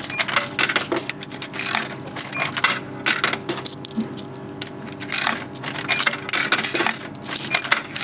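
Ten-yen coins dropped one after another into a Japanese drink vending machine's coin slot, clinking and clicking as each falls through the coin mechanism and is counted. A steady low hum runs underneath.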